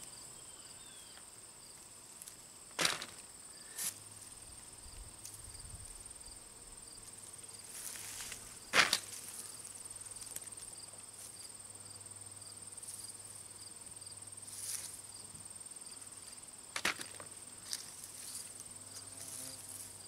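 Insects trilling steadily in a high, even chorus, with a few sharp clicks and knocks from hand-digging close by, the loudest about nine seconds in.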